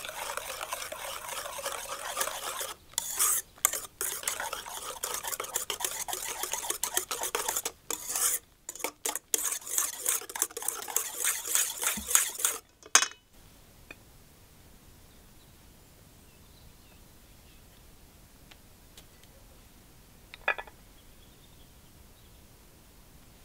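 Wire whisk beating a thin batter in an enamel bowl: quick, continuous clinking and scraping of metal against the bowl with a few short pauses. It stops suddenly a little past halfway, leaving quiet with one short knock later on.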